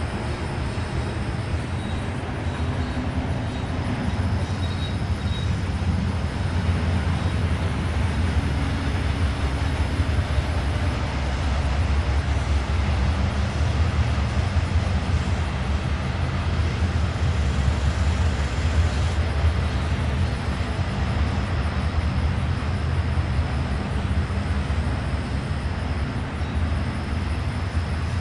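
Intermodal freight train rolling by, a steady low rumble that holds through the whole stretch, with a faint intermittent high tone above it.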